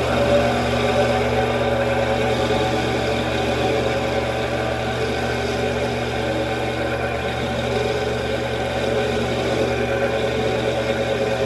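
Mini metal lathe running steadily through a turning pass, its motor and gearing giving an even hum with several steady tones.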